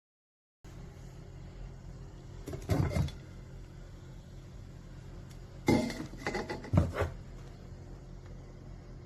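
Two short bursts of clattering knocks and clicks, as of kitchenware being handled, a few seconds apart over a steady low hum.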